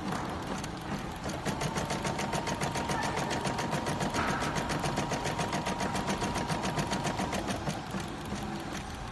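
DT9090 embroidery and sewing machine stitching at a fast, even rhythm of several stitches a second, with a thin steady whine through the middle of the run.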